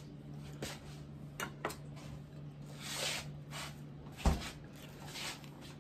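Light clicks and rustles of toast and a spatula being handled on a china plate as a sandwich is put together, with one sharp thump about four seconds in. A low steady hum runs underneath.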